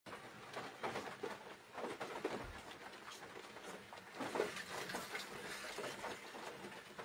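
Rain pattering on a car's roof and windscreen, heard inside the cabin as an uneven spatter of small ticks over the hiss of tyres on the wet road.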